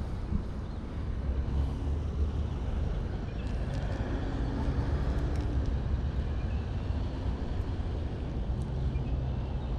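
Road traffic: a steady low rumble of passing cars, with one vehicle's engine hum swelling up and fading in the middle.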